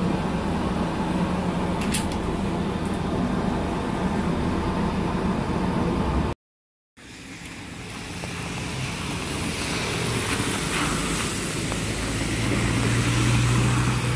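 Mercedes-Benz Citaro city bus engine idling, heard from inside the cabin as a steady low hum. After a brief cut to silence, a Citaro is heard from the roadside pulling away, its engine growing louder over the last few seconds, with tyres hissing on the wet road.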